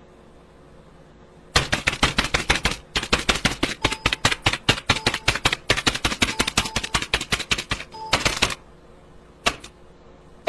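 A fast run of sharp typing clicks, about ten a second, starting about a second and a half in and stopping near the end, with a couple of lone clicks after.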